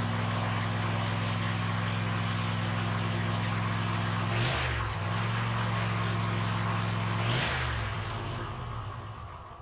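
Cub Cadet ZT1 zero-turn mower engine running at a steady speed. Its pitch dips briefly twice, each dip with a short rush of noise, and the sound fades away near the end.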